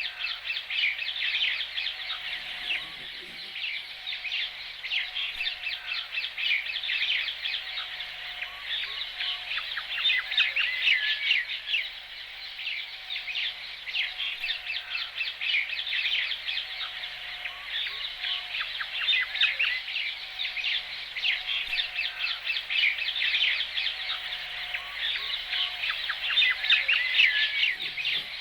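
Bird chorus ambience: many small birds chirping and twittering continuously, with a fainter, lower short note repeating every second or two beneath them.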